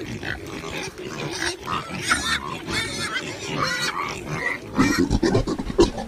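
Several pigs grunting, with frequent high-pitched squealing calls mixed in. Near the end it cuts to a run of sharp scraping knocks.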